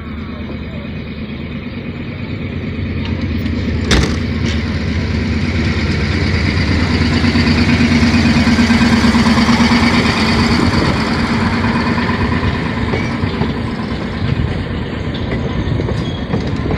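MBxd2 narrow-gauge diesel railcar rolling slowly past: its engine drone grows louder as it draws level, then eases as the carriages behind it roll by. A single sharp knock about four seconds in.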